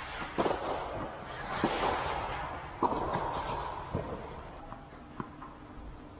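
Tennis ball struck back and forth in a rally, about one hit every second and a quarter, each crack echoing under an air-supported dome. The later hits are fainter.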